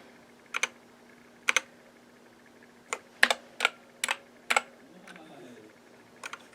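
Mechanical keyboard keys on a DK61 60% keyboard fitted with new keycaps, pressed one at a time in a loose, irregular series of sharp clacks. There are about nine strokes, several heard as quick doubles, with pauses between them.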